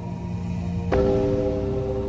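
Background music: dark, sustained chords, with a new chord struck about a second in and held.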